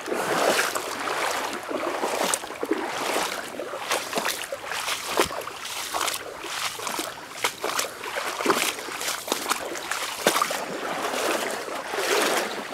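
Wading footsteps through a shallow creek: water splashing and sloshing around the legs with each stride, in an uneven run of splashes.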